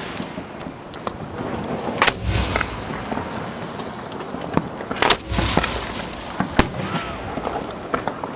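Fireworks shells fired from mortars at close range: two heavy thumps about three seconds apart, each with a short rumble after it, then a lighter crack and scattered small pops.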